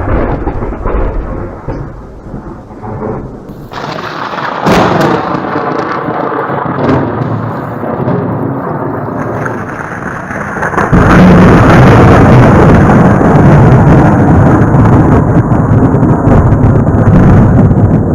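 Thunderstorm: thunder rumbling over the hiss of rain. The sound changes abruptly about four and eleven seconds in, and is loudest and deepest after the second change.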